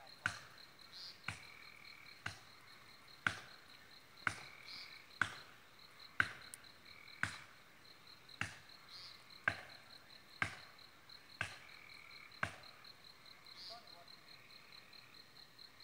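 Hatchet blows chopping into a pine trunk: about thirteen sharp knocks, roughly one a second, that stop about three-quarters of the way through. Under them an insect's steady, pulsing high trill carries on throughout.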